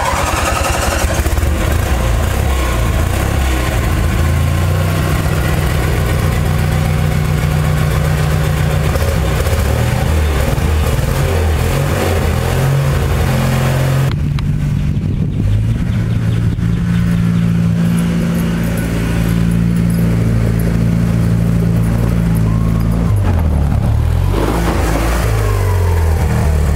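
Six-wheel amphibious ATV's 18 hp Briggs & Stratton engine running just after a cold start, its pitch stepping up and down as the throttle is worked. Near the end it revs up and down as the machine drives off.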